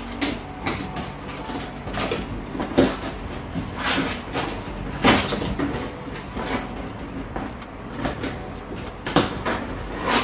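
Cardboard packaging sliding and scraping as an inner box is pulled up out of an outer carton, in irregular rustling strokes with a few sharper scrapes.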